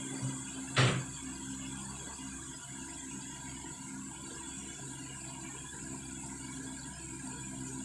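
A single sharp knock about a second in, over a steady low hum.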